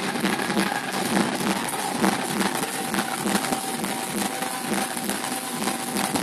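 Loud dance music with a steady beat of about two thumps a second, recorded as a dense, muddy wash.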